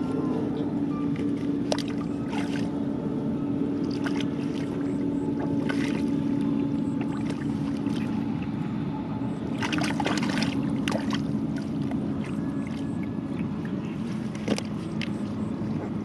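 Hands splashing and sloshing in shallow muddy water while feeling for catfish, with short sharp splashes every few seconds, over a steady low motor drone that dips slightly in pitch in the second half.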